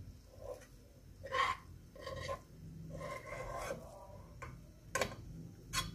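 Cooked rice being scraped and tipped out of a bowl into a pot of milk: a few short rasping, rubbing scrapes, some with a squeak, then two sharp clicks near the end.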